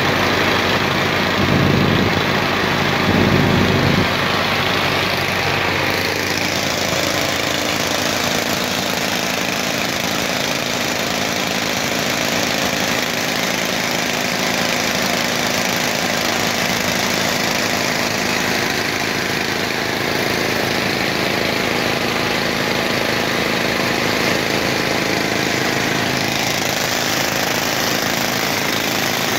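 Indofarm 3055 tractor engine running steadily while driving a trailer-mounted multi-cylinder air compressor, a fast, even knocking pulse under the engine note. Two brief louder surges come in the first few seconds.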